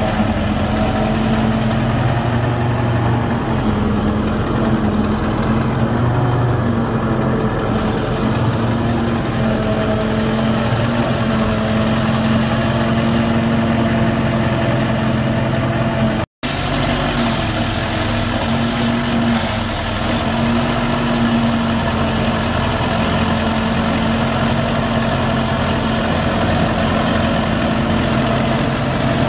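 Ford F550's 7.3-litre V8 diesel engine idling steadily. The sound cuts out for a split second about sixteen seconds in.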